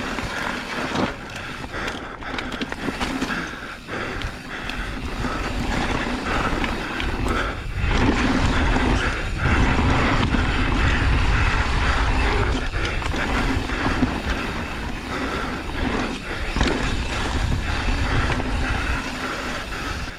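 Riding noise on a trail: wind rushing over the microphone with rattles and knocks, growing louder about eight seconds in.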